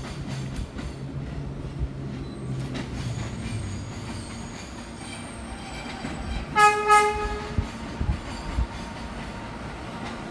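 NYC subway R160 train rolling into a station with a steady low rumble. About six and a half seconds in its horn gives two short toots, with a few low wheel thumps just after.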